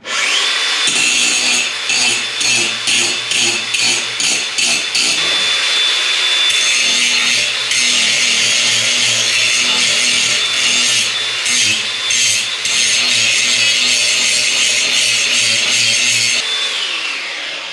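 Cordless angle grinder with a cutoff wheel working steel: the motor whines as it bites into the metal. It goes in short passes for the first few seconds, then runs steadily, and spins down near the end.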